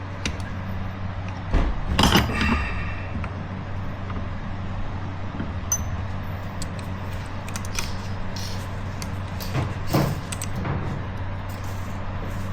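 Light metallic clinks and taps of metal parts and tools being handled during an aluminium brazing repair, the loudest cluster about two seconds in and another near ten seconds, over a steady low hum.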